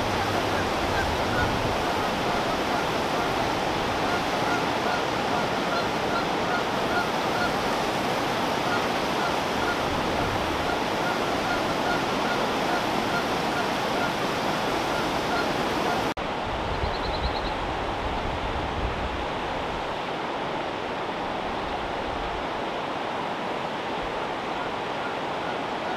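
Steady rush of the James River's white water pouring over a low dam and through rocky rapids, with a faint repeated high note over it through the first half. About two-thirds of the way through, the sound cuts to a quieter, duller rush.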